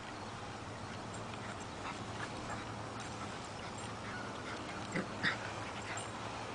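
Small dog giving two brief vocal sounds about five seconds in while playing with other dogs, over a faint steady background.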